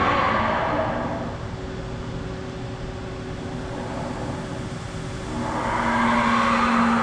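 Haas VR-11B 5-axis vertical machining center running, its motor noise swelling twice, at the start and again about five seconds in, over a steady hum. A lower tone sounds during the second swell.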